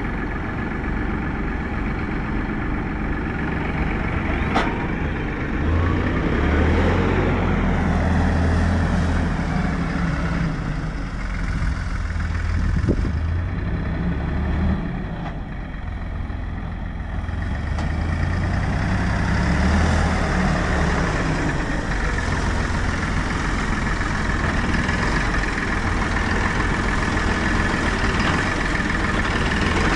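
Farm tractor engine running steadily, its low drone swelling and easing as the load changes, with a sharp click about four and a half seconds in.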